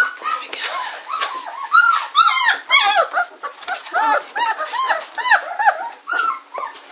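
German shorthaired pointer puppies whimpering and squealing, many short high cries overlapping several times a second.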